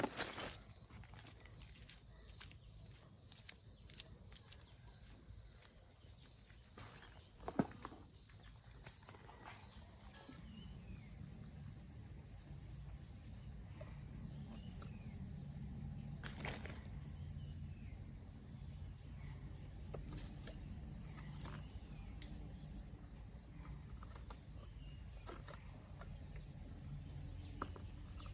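Insects droning in one steady high-pitched tone, with scattered clicks and knocks, a few bird chirps and a low hum that comes in about a third of the way through.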